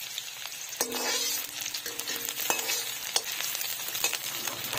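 Chopped onions sizzling and crackling in hot oil in a kadhai as they fry toward browning, with the clicks and scrapes of a metal slotted spatula stirring them against the pan.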